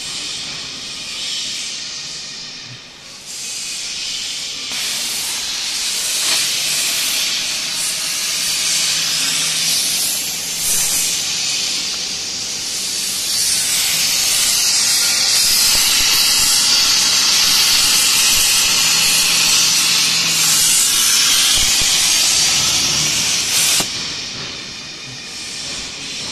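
CNC plasma cutter's torch cutting 10 mm carbon steel plate: a loud, steady high hiss from the plasma arc, which eases off near the end.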